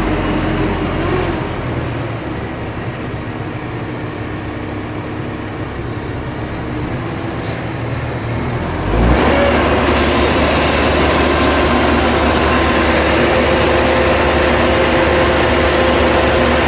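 An engine running steadily, then throttled up sharply about nine seconds in and held at the higher, louder speed.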